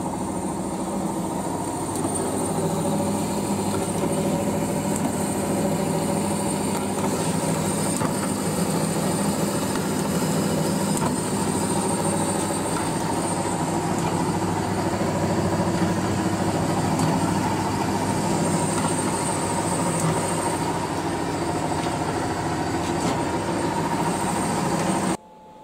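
Vertical contour bandsaw running steadily, its blade cutting a 6061 aluminium round bar into billets, with a steady whine over a broad machine hum.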